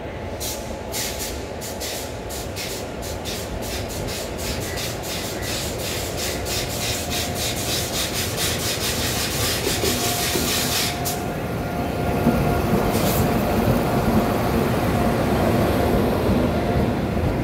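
WAP7 electric locomotive and its express coaches approaching and rolling past close by, getting louder. A run of sharp clicks comes quicker and quicker and stops about 11 seconds in. After that the train runs past louder, with a faint steady whine.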